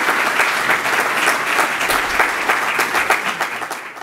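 Lecture-hall audience applauding at the end of a talk, many quick claps, thinning out near the end.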